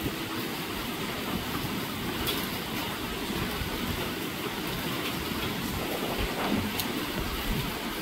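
Steady rain with strong gusting wind, the gusts buffeting the microphone in low rumbles around six and seven and a half seconds in.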